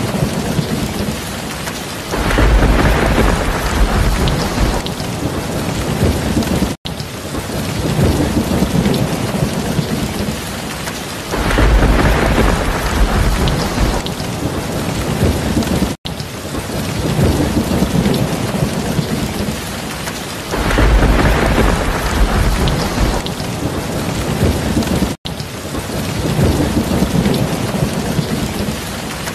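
Steady heavy rain pouring, with a low thunder rumble swelling for two to three seconds about every nine seconds. The track repeats, with a momentary cut three times.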